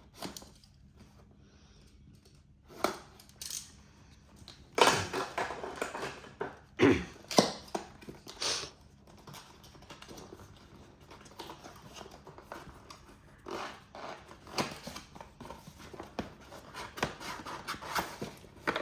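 Packaging of a new keyboard being handled and opened: irregular rustling and scraping with scattered clicks and knocks, loudest in several bursts about five to nine seconds in.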